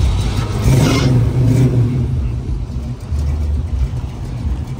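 Classic Ford Mustang's engine running, revved once about a second in and then dropping back to an idle.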